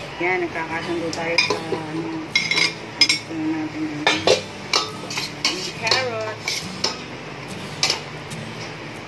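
A metal utensil stirring food in a cooking pot, scraping and clinking against the pot with many sharp clinks.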